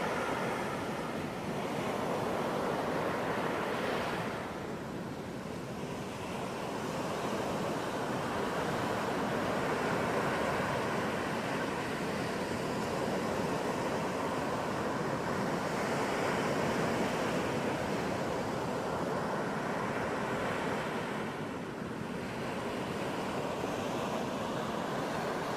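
Ocean waves: a continuous rush of surf that slowly swells and eases, softening briefly about five seconds in and again near the end.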